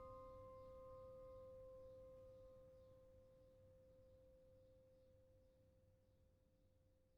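The final note of an instrumental music track ringing out and fading: one steady tone, with a few fainter higher tones dying away in the first few seconds, sinking toward near silence.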